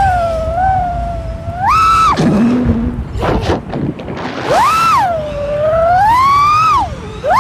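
FPV quadcopter's brushless motors and propellers whining, the pitch rising and falling with the throttle. There are sharp throttle punches about two and five seconds in, a dip to low, choppy throttle between them, a slower climb, and a drop again near the end.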